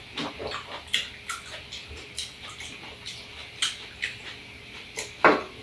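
Wet mouth sounds of people eating ripe apricots: a string of short lip smacks, sucking and chewing clicks, with one louder smack near the end.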